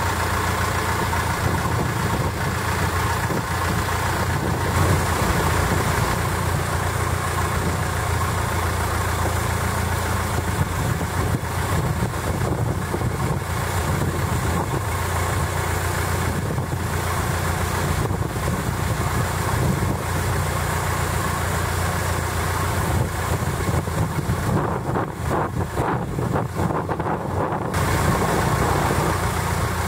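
Long-tail boat's engine running steadily under way, with wind and water rushing past; the higher rushing hiss drops away for a few seconds near the end.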